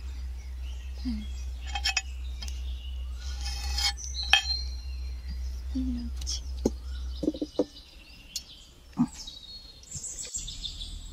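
Scattered knocks and clacks of a wooden rolling pin on a stone board as dough is rolled and handled, with birds chirping in the background.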